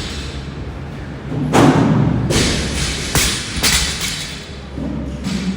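Heavy thuds on a gym floor during a workout: about four loud impacts from about one and a half to four seconds in.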